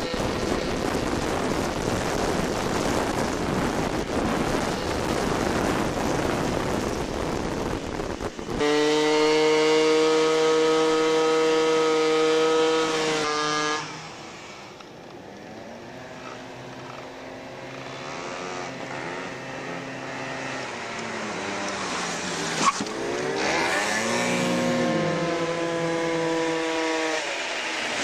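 Two-stroke scooter engines at high revs, heard from a moving scooter. For about the first eight seconds there is mostly wind rush over the microphone. Then a loud, high, steady engine whine is held at full throttle for about five seconds and cuts off. After that a quieter engine note falls away, then climbs and holds again near the end, with a single sharp click in between.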